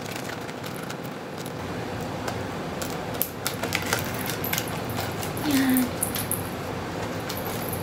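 Metal chain strap of a small bag clinking and clicking in the hands as it is fastened, in many small irregular ticks, with one louder sound about three quarters of the way through.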